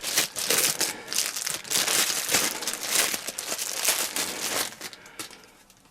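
Plastic bag crinkling and rustling as it is handled and opened, in quick irregular crackles that die away near the end.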